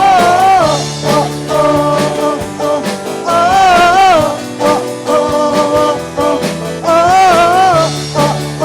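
Worship band music between sung lines: held chords with a wordless melodic lead that bends and wavers in three phrases, near the start, in the middle and near the end.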